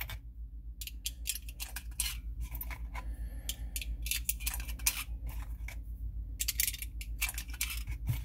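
.22 Magnum cartridges being picked out of a box and pushed one by one through a plastic speed loader into a steel pistol magazine: light metallic clicks and brass clinks in quick, irregular runs, with brief pauses about a second in and about six seconds in.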